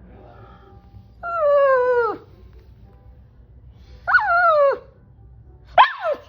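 A pug whining in three long cries, each falling in pitch, with pauses between them.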